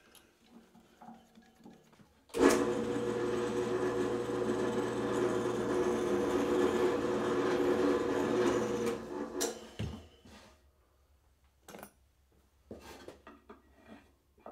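Drill press switched on and running steadily for about seven seconds while a hole is bored into a wooden strip, then switched off and winding down. Several light knocks follow as the wood is handled.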